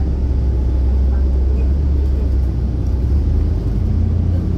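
A city bus in motion, heard from inside the cabin: a steady low engine and road rumble. The low drone shifts slightly about three seconds in.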